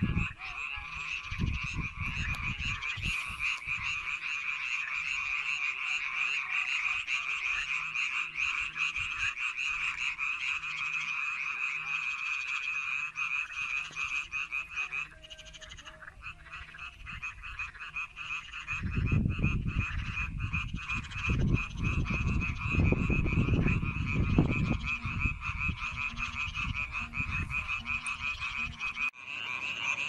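A chorus of many frogs calling together, a steady, dense, fast-pulsing trill. Low rumbles come and go about two-thirds of the way through.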